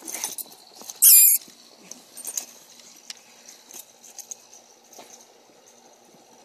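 A short, loud high-pitched squeak about a second in, then soft, scattered crunching of footsteps in snow.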